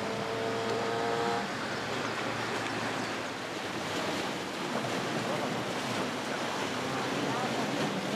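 Steady wash of sea surf with wind on the microphone. For the first second and a half a steady mechanical hum with several pitched tones runs along under it, then cuts off suddenly.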